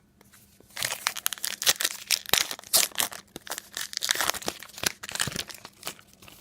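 A trading-card pack's wrapper being torn open and crinkled by hand, with dense crackling from about a second in until shortly before the end.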